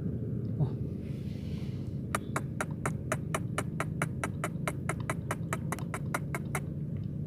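A steady low hum with a fast, even run of sharp clicks, about five or six a second, starting about two seconds in and stopping some four and a half seconds later.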